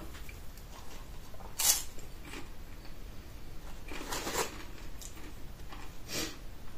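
Crisps crunching as they are bitten and chewed, with the plastic crisp packet crinkling as it is handled: a few short, sharp crackles, the longest about four seconds in.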